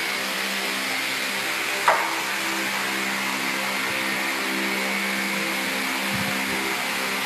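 Steady machine hum with a constant noise bed running throughout, and a single sharp knock about two seconds in.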